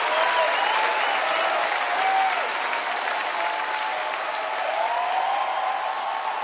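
Large concert audience applauding, with voices calling out over the clapping.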